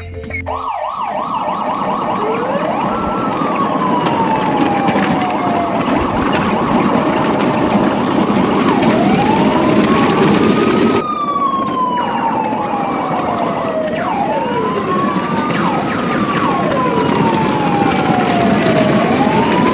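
Electronic sirens wailing, the pitch sweeping up and down every few seconds with several siren tones overlapping, and fast yelping warbles near the start and again around the middle; a steady rushing noise runs underneath, and the sound jumps abruptly a little past halfway.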